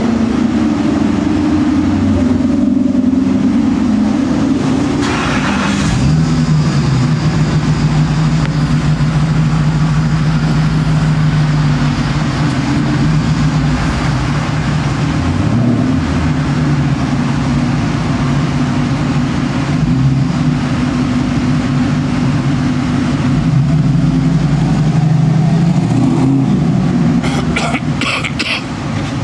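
A motor vehicle's engine running steadily, its hum dropping in pitch about six seconds in and then holding.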